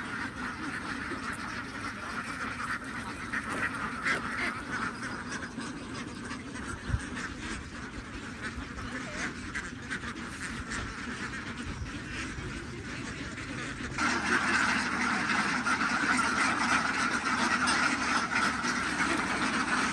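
A huge flock of young domestic ducks quacking all together, a dense, continuous chatter of overlapping calls that becomes suddenly louder about two-thirds of the way through.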